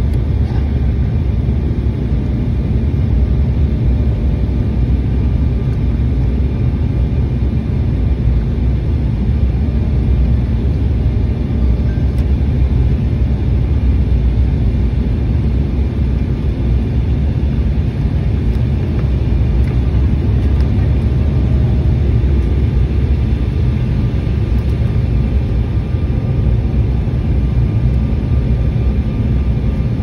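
Steady low rumble inside the cabin of an Embraer E175 regional jet on final approach: its turbofan engines and the rush of air over the fuselage.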